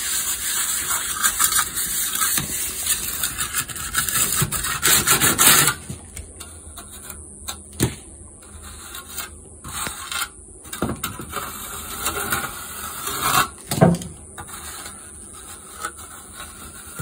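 Hand trowel scraping over a patch of stucco base coat mixed with Rapid Set that has begun to set, shaving and smoothing it. Continuous rasping for about the first six seconds, then scattered short scrapes and taps.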